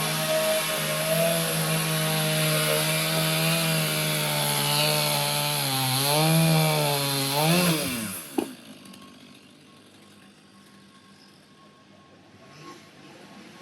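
Chainsaw running at high speed, cutting into a log, its pitch wavering under load. About eight seconds in the pitch drops and the saw winds down and stops, leaving only faint background sound.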